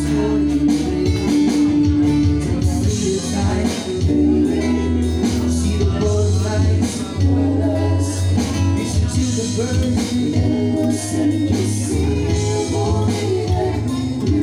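Background music: a song with singing over guitar and a steady bass beat.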